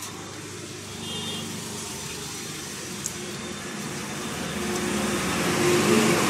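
A motor vehicle's engine running nearby, growing steadily louder toward the end, with a light click about three seconds in.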